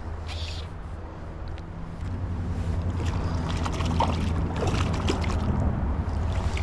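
Steady rush of a high, fast river with a heavy low rumble, growing louder about two seconds in, with scattered faint clicks; a bird calls briefly once near the start.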